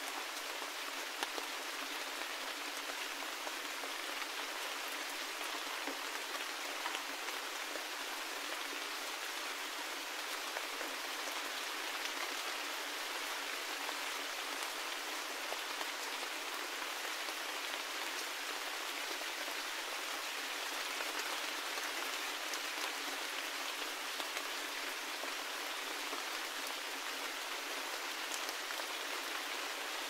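Steady forest rain: an even hiss of falling rain with scattered louder drops, thin and without any low rumble.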